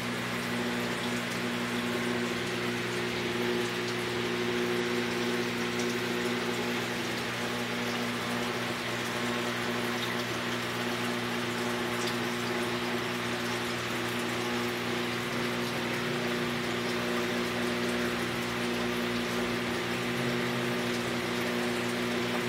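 Saltwater aquarium pump running with water circulating: a steady motor hum under an even hiss of moving water, unchanging throughout.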